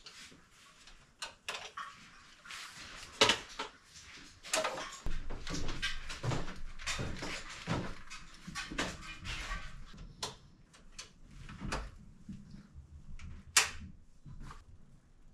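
Cutler-Hammer CH circuit breakers being unsnapped from and snapped onto a panel's bus bar, with hand-tool work at the panel: an irregular run of plastic clicks, snaps and scraping, the two sharpest snaps about three seconds in and near the end.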